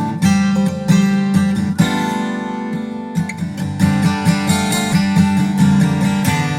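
Background music led by a strummed and plucked acoustic guitar, with a quick run of picked notes.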